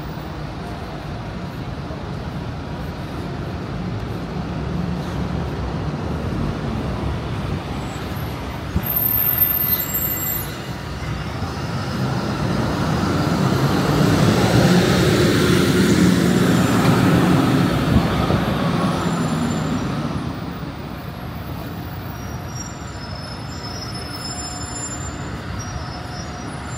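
City-centre road traffic, with a bus driving past close by: its engine noise swells about halfway through, peaks, then fades. A short louder burst about a third of the way in.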